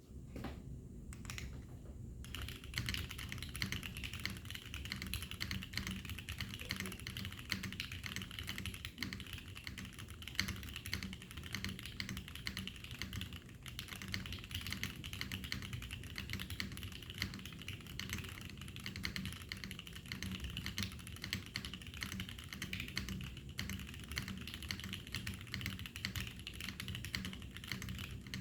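Continuous fast typing on a Geonworks F1-88 custom mechanical keyboard with Gateron Golden Cap V2 switches, TX v3 stabilizers and JTK Emerald keycaps: a steady stream of key clacks mixed with the deep, slappy thock of the spacebar. The typing starts sparse and picks up to full speed about two seconds in.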